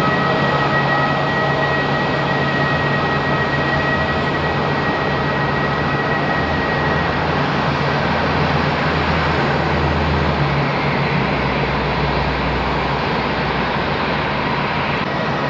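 Boeing 787 jet engines, Rolls-Royce Trent 1000s, running at taxi idle: a steady rushing noise with a low hum and a high thin whine that fades out about halfway through.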